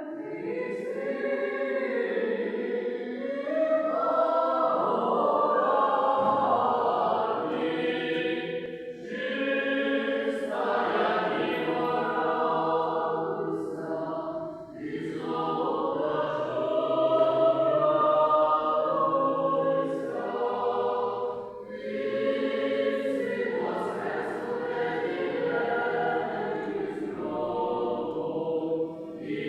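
A choir singing religious chant in long held phrases, with short breaths between phrases.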